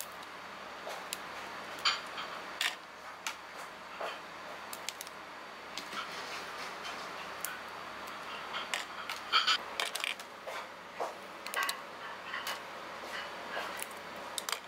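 Hands peeling cooked mantis shrimp: the thin shell cracks and snaps in many small irregular clicks, with soft rustling, over a faint steady hiss.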